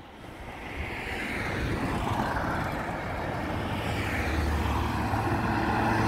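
Quad bike engine racing around nearby, its note rising and falling with the throttle as it gets steadily louder.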